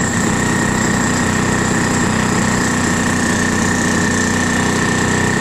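Handheld corded power tool running steadily under load as it cuts into a concrete basement wall, a constant machine drone with a steady high whine.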